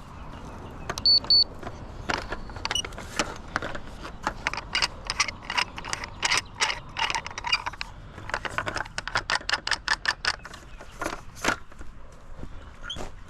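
A rapid run of sharp metallic clicks and rattles, like small metal parts being handled, preceded about a second in by two short high-pitched beeps.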